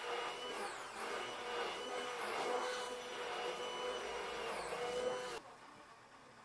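Electric immersion blender running in a pot of body lotion, a steady motor whine whose pitch sags twice as the blades are loaded, then switched off suddenly a little over five seconds in.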